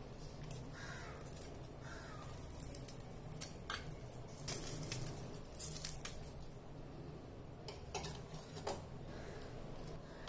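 Scissors snipping dry agar agar strands over a stainless steel bowl: a run of short, sharp snips and light crackles as the brittle strands are cut and handled, thickest in the middle.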